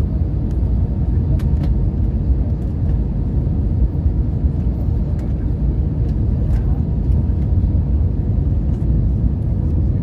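Steady low rumble of an Airbus A321's engines and rushing air, heard inside the cabin from a window seat over the wing during the approach, with a faint steady whine underneath.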